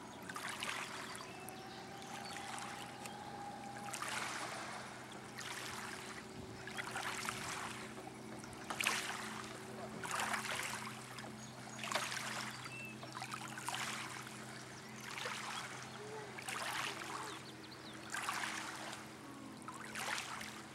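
Small waves lapping against the shore or a hull, coming in soft splashy swells about every one and a half seconds, over a faint steady low hum.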